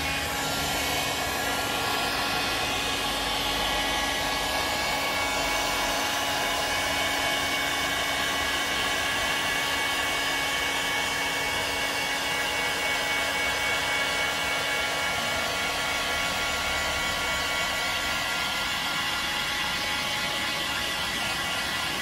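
Ozito hot-air heat gun running steadily: a continuous rushing blow of air with a faint steady whine, as it heats the fridge door's rubber seal to soften it.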